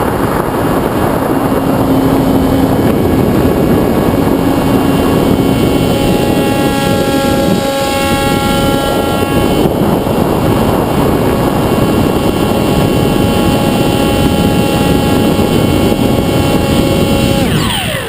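Sky Surfer RC foam glider in flight, heard from its onboard camera: the electric motor and propeller whine at a steady pitch over heavy wind rush on the microphone, and near the end the whine drops sharply in pitch as the motor winds down.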